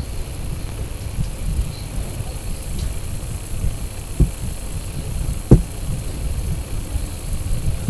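Inside a KiHa 40 diesel railcar pulling away from a station: a steady low rumble from the running train, with two sharp knocks about four and five and a half seconds in.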